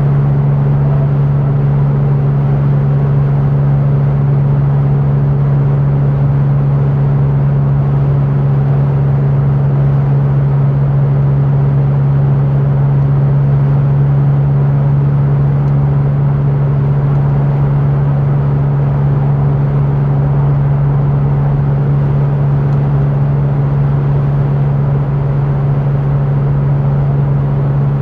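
Porsche 911 (996) Turbo's twin-turbocharged flat-six running steadily at constant revs while cruising, its note holding one pitch throughout, over a steady rush of tyre and road noise.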